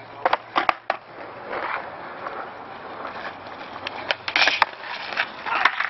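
Skateboard rolling over parking-lot asphalt, with several sharp clacks of the board.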